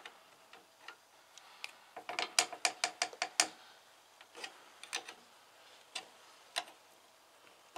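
Open-end wrenches clicking against the metal nuts of a cutting-ring compression fitting on a fuel line as it is tightened in short turns, the ring biting into the tube: scattered sharp metal clicks, with a quick run of about eight clicks around two to three seconds in.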